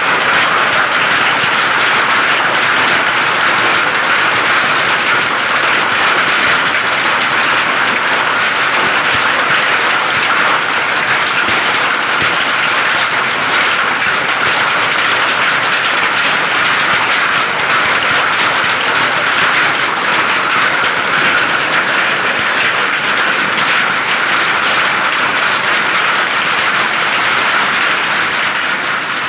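Heavy hail and rain pelting down in a loud, steady, unbroken clatter.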